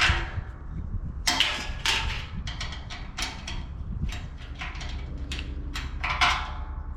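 Metal clanks and scrapes from working on a steel-drum stove: a dozen or so irregular knocks, several ringing briefly like struck sheet metal, over a steady low rumble.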